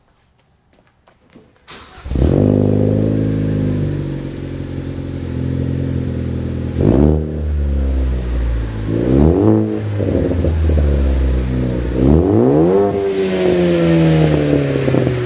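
Ford Focus ST's turbocharged engine breathing through a new 3-inch Roush cat-back exhaust: it starts up abruptly about two seconds in, idles, then is revved three times, the last rev falling back slowly.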